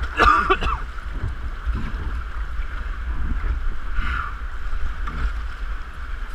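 Steady rush of whitewater river, with wind rumbling on a GoPro's microphone.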